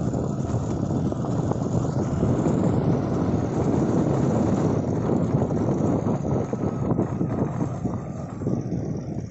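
Moving motorbike: wind rushing and buffeting over the microphone with the bike's running noise underneath. It eases a little near the end.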